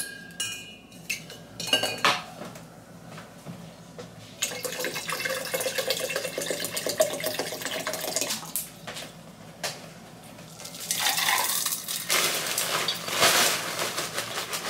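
Clinks as the straw lid comes off a stainless steel Stanley tumbler. Then water pours from a plastic bottle into the tumbler for about four seconds, its pitch creeping upward as the tumbler fills. A plastic bag rustles near the end.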